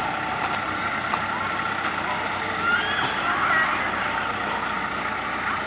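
Heavy diesel engine running steadily, with a steady high whine and a few short squeaks about halfway through.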